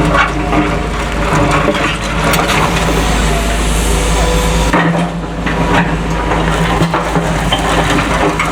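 Cat excavators' diesel engines running steadily while demolition debris cracks and crunches in repeated short snaps and knocks.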